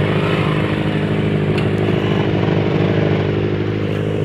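Motorcycle engine running at a steady speed, its pitch holding without revving up or down.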